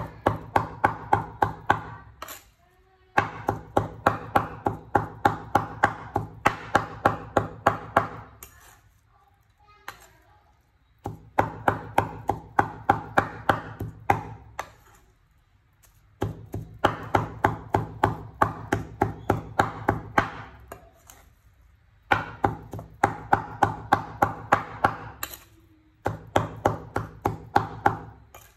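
Cleaver chopping raw meat into mince on a wooden cutting board: rapid, even knocks several a second, in runs of a few seconds broken by short pauses.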